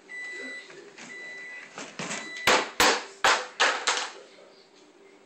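A bird's plastic bathtub clattering down off its cage: a quick run of about five loud knocks and rattles in under two seconds. Before it, a steady high beeping tone stops about two seconds in.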